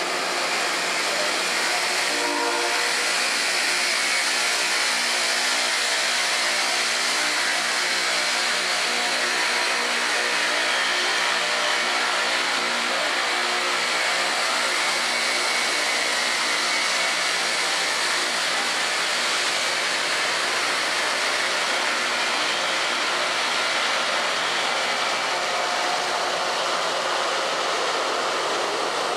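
Loram rail grinder passing at work, its rotating grinding stones running against the rail in a steady, loud hiss, over the drone of its diesel engines.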